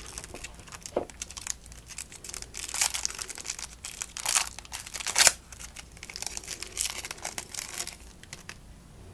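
Baseball card pack wrappers being torn open and crinkled, a run of irregular crackling rustles that is loudest a little past five seconds in.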